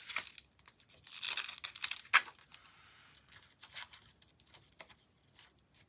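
Rustling and crinkling of craft materials being handled on a work table, ending in a sharp click a little over two seconds in, followed by a few faint ticks.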